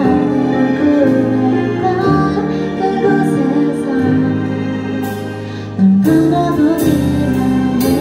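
A song performed live: a woman singing with keyboard accompaniment, growing suddenly louder just before six seconds in.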